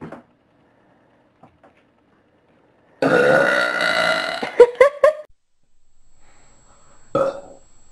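A girl's long, loud burp that starts suddenly about three seconds in, holds for about a second and a half, then breaks off in a few short pieces. A shorter sound follows near the end.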